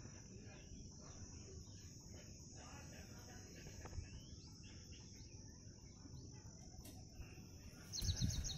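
Faint ambience of a steady, high-pitched insect drone with scattered faint bird chirps; a low rumble comes in near the end.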